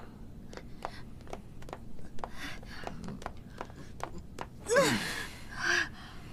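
Footsteps of two people staggering across a hard floor, then a cry falling sharply in pitch and a gasp as they drop onto a bed about five seconds in.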